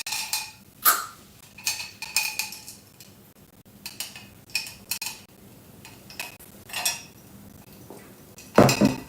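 Dishes and cutlery clinking and knocking at irregular intervals as they are handled, with a louder clatter near the end.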